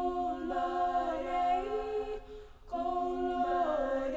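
Background music: several voices singing slow, held chords in two long phrases, with a short break about two and a half seconds in.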